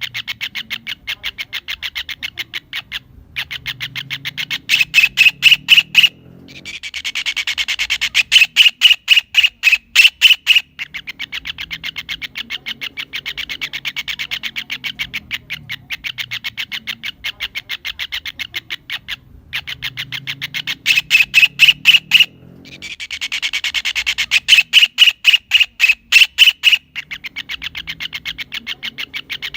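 Kingfisher calling: fast trains of sharp, harsh notes, several a second, that swell into louder bursts and break off, the same call sequence coming round again about every sixteen seconds.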